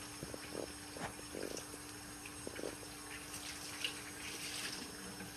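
Faint water running and splashing in a stainless steel kitchen sink as a microfiber cloth is rinsed, with a few small knocks and a faint steady hum underneath.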